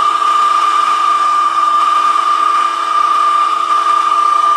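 Bosch GBH187-LI cordless rotary hammer in drill-only mode at low speed, boring through 4 mm steel U-channel under heavy feed pressure, with a steady high whine that does not bog down.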